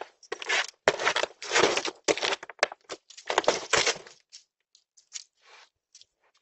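A dog tearing and crinkling at a delivery package with its teeth: a rapid run of loud rips for about four seconds, then a few scattered fainter tugs.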